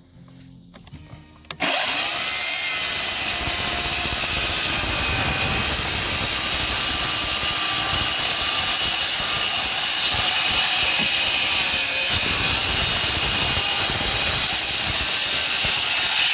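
Power saw starting about a second and a half in, then cutting steadily through the overhanging ends of yellow-pine tongue-and-groove roof decking boards, trimming them flush along the roof edge.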